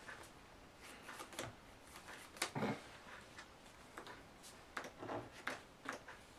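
Duel Masters trading cards being handled on a table: faint, scattered clicks and taps as cards are drawn, laid down and slid on the playmat, over quiet room tone.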